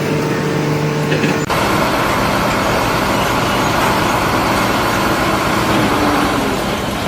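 Loud, steady machinery noise, like a heavy vehicle or construction machine running, with a steady hum in the first second and a half.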